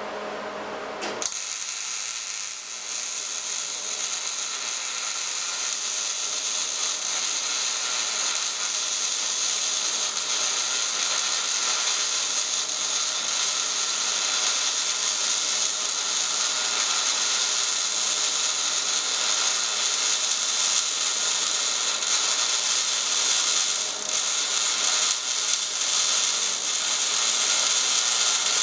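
MIG welding arc striking about a second in and then running one long continuous bead: a steady, even crackling sizzle, typical of short-circuit transfer, with the machine set at about 16.5 volts and 200 inches a minute wire feed. The arc cuts off suddenly at the end.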